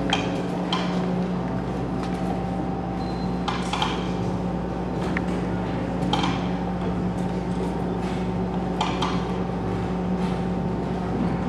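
Metallic clinks, each ringing briefly, about six of them at uneven intervals of one to three seconds, over a steady low hum. The clinks are typical of steel bowls knocking and scraping.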